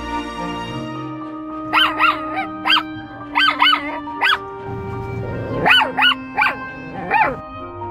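Small dog giving about ten short, high yelping barks in three quick clusters, each call rising and falling in pitch, over light background music.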